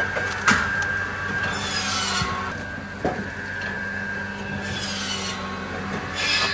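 Wood being handled by forestry machinery: logs knock and scrape against each other and against metal over a steady machine hum, with a few sharp knocks and short rasping, hissing stretches.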